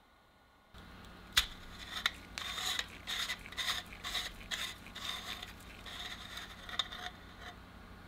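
Threaded cap of a Pyrotronics F3 ionization smoke detector being unscrewed by hand: a click about a second and a half in, then a run of short scraping strokes as the threads turn, stopping shortly before the end as the cap comes off.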